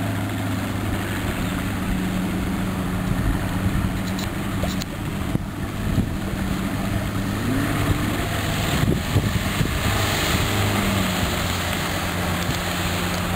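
90 hp Johnson outboard motor idling steadily while it warms up. About seven seconds in the revs rise briefly, then settle back to idle near eleven seconds.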